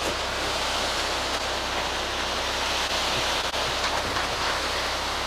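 Wet concrete running down the chute of a front-discharge ready-mix truck during a slab pour: a steady rushing hiss, with a low, even hum of the truck underneath.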